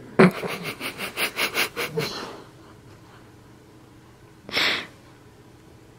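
Springer spaniel sniffing rapidly close to the microphone, several quick sniffs a second for about two seconds, then a single short snort about four and a half seconds in.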